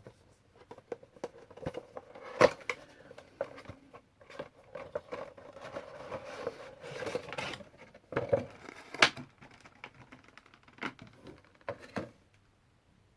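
A Funko Pop figure being taken out of its cardboard box and plastic insert: scraping, rustling and sharp clicks of cardboard and plastic being handled, with the loudest snaps about two and a half and nine seconds in.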